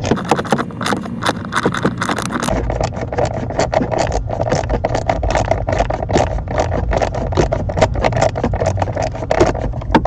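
Hand tool working out a screw that holds a blend door actuator behind a car's dashboard: a long run of rapid small clicks and scraping.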